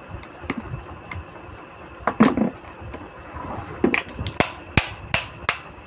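Metal screwdriver clinking and tapping against an RO booster pump's head as it is pried and knocked loose from the pump body. One heavier knock comes about two seconds in, then a quick run of about five sharp taps near the end.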